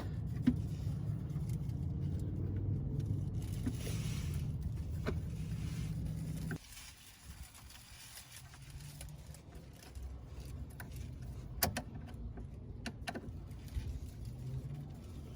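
Metal clicks and clinks of a hand tool tightening a radiator hose clamp, over a low steady hum that cuts off abruptly about six and a half seconds in.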